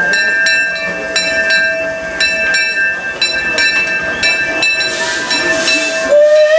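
The C.K. Holliday, a 4-4-0 steam locomotive, pulling in alongside a station platform: its bell rings repeatedly over a steady high squeal. From about five seconds in, steam hisses out, loudest near the end.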